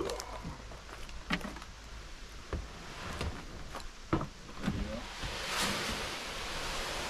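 Chicken feed poured from a black plastic garbage can into a plastic tote: a few knocks and bumps as the can is handled and tipped, then about five seconds in a steady hiss of feed sliding out and pattering into the tote.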